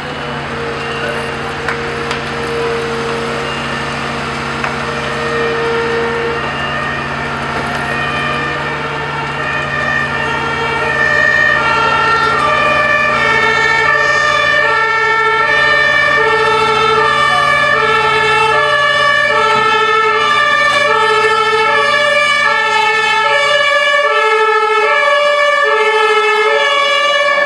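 Fire engine's two-tone siren alternating between a high and a low note about every 0.7 seconds. It comes in about eight seconds in and grows louder. A steady low hum underneath stops shortly before the end.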